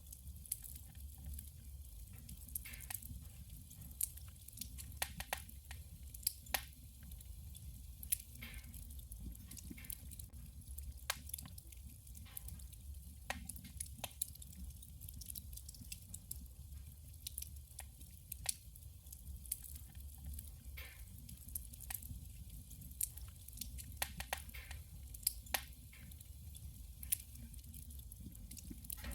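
Wood fire burning in a wood stove: irregular crackles and pops of burning firewood over a steady low rumble.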